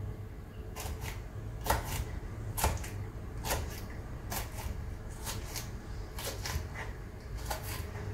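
Kitchen knife cutting long green peppers on a cutting board: short crisp cuts about once a second, often in quick pairs, starting about a second in, over a low steady hum.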